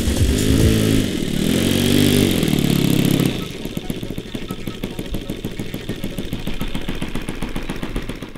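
Model airplane engine, pitch rising and falling several times in the first three seconds as it revs or passes by, then settling into a quieter, rapid, even running beat.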